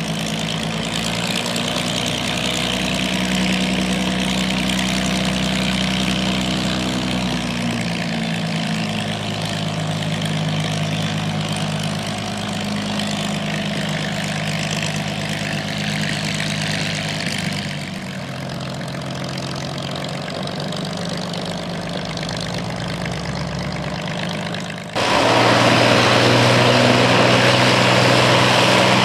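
IL-2 Sturmovik's Allison V-1710 V12 engine and propeller running steadily at idle. Its pitch steps down about a quarter of the way in, and near the end the sound jumps suddenly louder.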